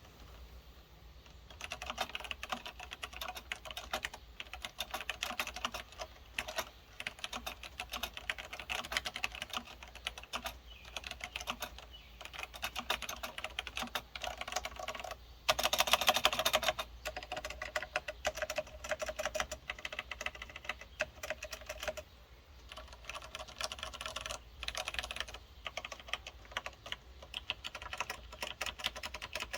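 Typing on a Unitech K151S mechanical keyboard with Cherry MX switches: a fast, continuous clatter of key clicks, with a louder, denser flurry about halfway through.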